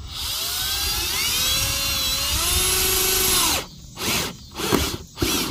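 Power drill spinning a long bit into the trailer roof's sheet metal and plywood. Its motor whine rises in pitch, holds steady, then stops suddenly after about three and a half seconds. It is followed by a few short bursts of drilling.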